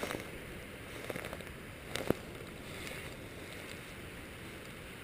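Steady rush of river water, with a few faint clicks about a second and two seconds in.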